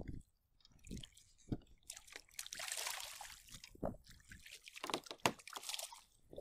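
Water splashing beside a kayak as a porgy is dropped back into the sea and thrashes at the surface, in two spells, with a few short knocks of handling on the kayak.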